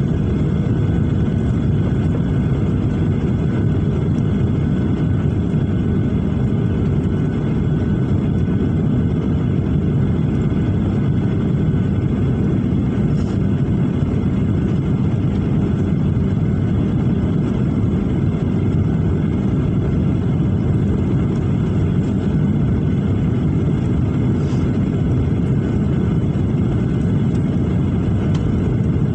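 Jet airliner cabin noise on the approach to landing: turbofan engines and air rushing past the fuselage, heard from inside the cabin at a window seat. A loud, even low noise with a few faint steady tones above it.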